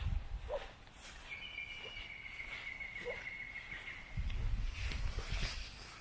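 Footsteps of someone walking across grass, heard as low rumbling thuds near the start and again about four seconds in. About a second in, a thin high whistling tone begins and holds almost steady for nearly three seconds. Two faint short chirps come before and during it.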